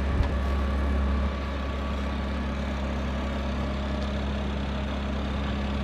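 Tractor engine running steadily at low revs while its hydraulics unfold a straw processor's conveyor; slightly louder for about the first second.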